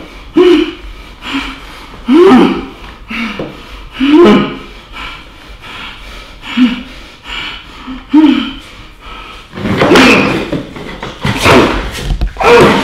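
A man gagged with a cloth in his mouth groaning and crying out in short, muffled bursts every second or two, turning longer and louder near the end.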